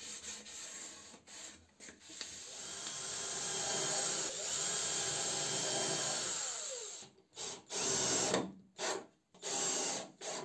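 Handheld electric power tool working wood, running steadily for several seconds and then winding down, its pitch falling, with rubbing strokes before it and a few separate short strokes after.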